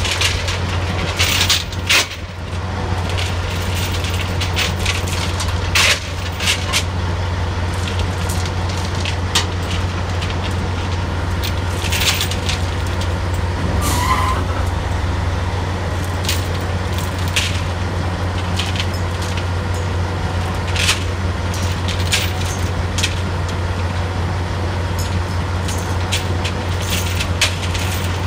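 Drilling rig machinery running with a steady low drone, over which come frequent sharp metallic clanks and knocks of chain and tools on the steel rig floor.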